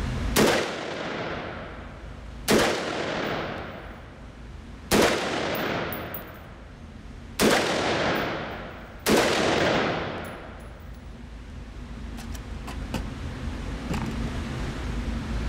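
Five shots from a budget AR-15 rifle, about two seconds apart, each followed by a long echoing decay off the concrete walls of an indoor range.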